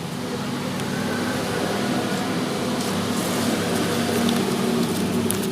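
A steady engine hum that slowly grows louder and eases off near the end.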